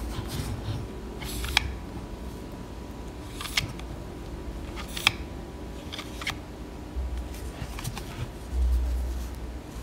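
Hands handling a SteelSeries Arctis 5 gaming headset: fingers rubbing and turning the plastic earcup, with a few sharp plastic clicks and low handling bumps near the end.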